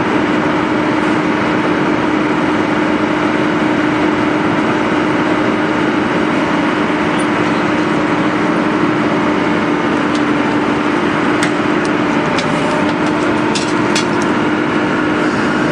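Excavator's diesel engine running steadily with a constant hum, and a few sharp clicks or knocks near the end.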